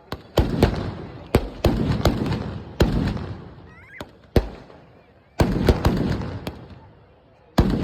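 Firecrackers going off: about a dozen sharp, loud bangs, each with an echoing tail. They come in irregular clusters, with a short lull in the middle.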